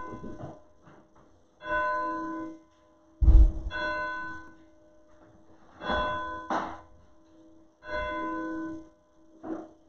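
Church bell tolling, one ringing stroke about every two seconds, its tone hanging on faintly between strokes. A loud, deep thump comes about three seconds in, with a couple of fainter knocks later.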